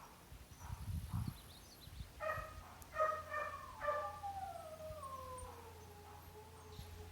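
A dog whining in three short cries, then one long howl that falls slowly in pitch.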